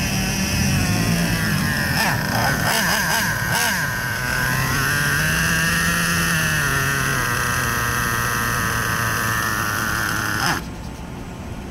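Small two-stroke nitro glow engine of an RC monster truck, still being broken in, running at a high idle with a steady high whine that rises and falls a little, then stopping abruptly near the end.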